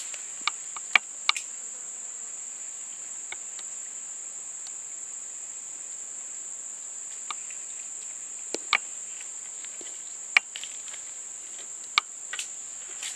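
Steady, shrill insect drone held on one high pitch without a break, with a few sharp clicks scattered through it.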